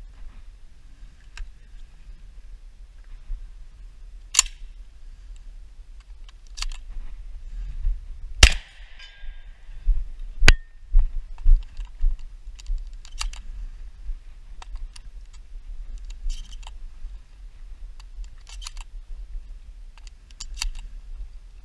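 Mechanical clicks and clacks of a Winchester SX3 12-gauge semi-automatic shotgun being handled. There are a few sharp louder cracks; the loudest comes about eight and a half seconds in and is followed by a brief ringing.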